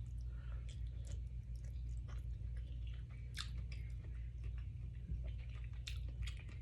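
A person chewing food with the mouth close to the microphone: scattered wet clicks and crunches over a steady low hum.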